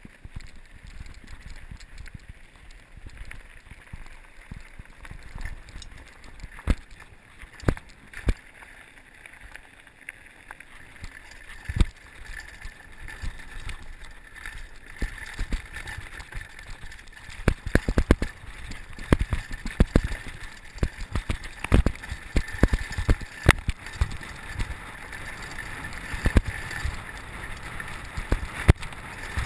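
Downhill mountain bike ridden fast over loose gravel and rough grassy singletrack: tyre noise over the ground with frequent sharp knocks and clatter from the bike over bumps, and wind on the microphone. The knocks come thicker and louder in the second half.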